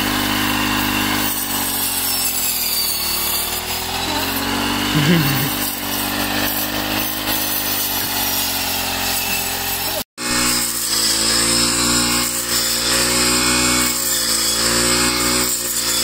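Small petrol engine of a hand-operated wheat-cutting machine running, its pitch sagging and rising again and again. The sound drops out suddenly for a moment about ten seconds in, then the engine carries on.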